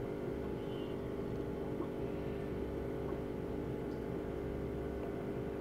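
Steady low background hum with a few faint held tones in it: room tone, with no distinct sound events.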